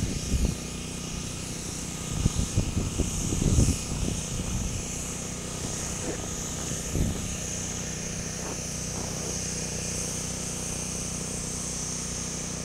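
A steady motor hum with a thin high whine, overlaid by low rumbling gusts of wind on the microphone between about two and five seconds in.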